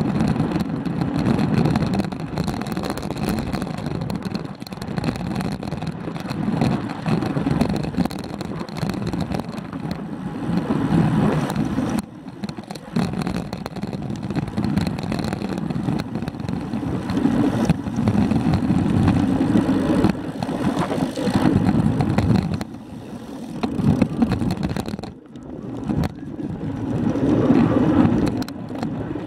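Wind buffeting the microphone of a camera mounted on a moving road bicycle, mixed with road noise, a loud uneven low rush. It eases off briefly twice, about twelve seconds in and again near the end.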